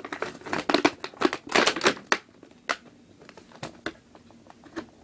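Plastic packaging crinkling and rustling as an action figure is unwrapped from its box, busy for about two seconds, then a few scattered clicks.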